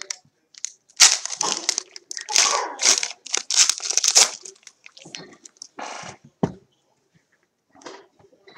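A foil trading-card pack being torn open, its wrapper crinkling in a quick run of loud rustles, then quieter rustling as the cards are handled, with one sharp snap near the end.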